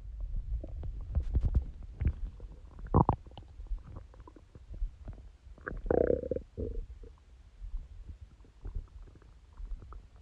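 A human stomach growling: a low rumble with irregular gurgles and clicks, the loudest gurgles about three seconds in and again around six seconds, where one turns into a longer squeaky gurgle.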